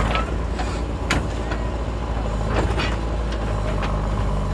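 JCB backhoe loader's diesel engine running steadily while the backhoe arm swings back and lowers its bucket, with a few sharp clanks about a second apart.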